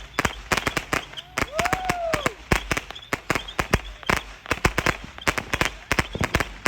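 A rapid, irregular volley of sharp firework cracks and pops, several a second, from a ground-fired fireworks finale. A brief whistle rises and falls about a second and a half in.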